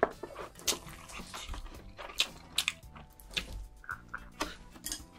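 Close-miked chewing of spicy noodles: a run of short, wet mouth clicks and smacks, with soft background music underneath.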